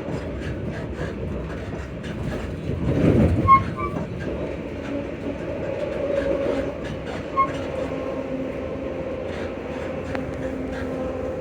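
ScotRail Class 334 electric multiple unit under way, its traction motors giving a steady two-note whine over the running noise of the wheels clicking on the rails. About three seconds in there is a louder rumble ending in a sharp knock, and a smaller knock later.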